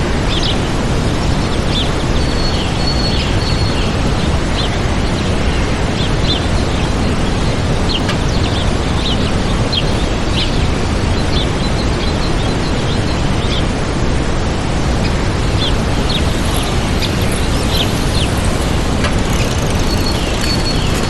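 Waterfall rushing steadily, with small birds chirping in many short, high calls over the water.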